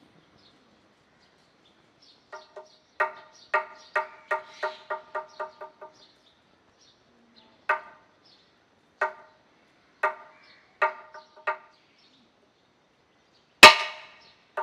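A series of short, pitched strikes, quickening to a fast run, then single strikes about a second apart, ending in one much louder sharp hit.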